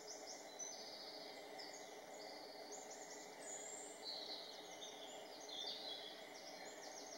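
Faint woodland birdsong: quick high chirps and short trills from songbirds throughout, over a steady low background hum.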